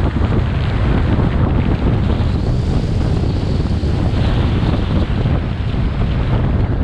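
Strong wind buffeting the microphone: a loud, steady rumbling roar with constant gusty flutter.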